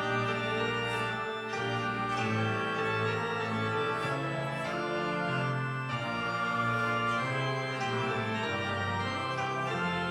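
Organ playing slow, sustained chords, the chords changing every second or two.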